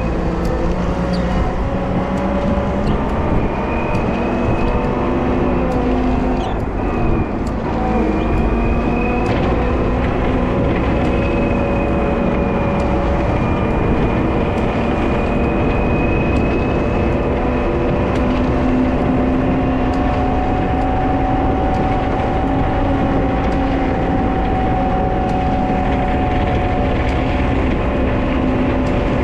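Wheel loader's diesel engine running steadily while plowing snow. A high whine comes in a few seconds in and fades out about halfway through.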